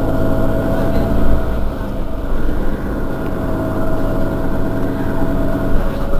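Mercedes-Benz Citaro city bus's rear-mounted engine idling while the bus stands still: a steady low rumble with a thin steady whine above it that dips slightly in pitch near the end.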